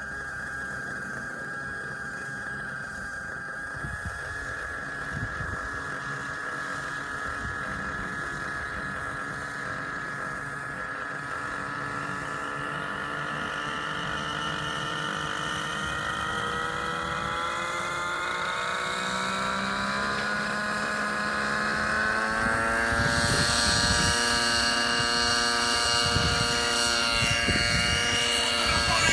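Synergy N5C radio-controlled helicopter's OS 55HZR two-stroke nitro engine and rotor spooling up, the whine rising slowly in pitch and growing louder for about twenty seconds, then holding steady as the helicopter lifts into a hover. Bursts of rushing wind noise come in near the end.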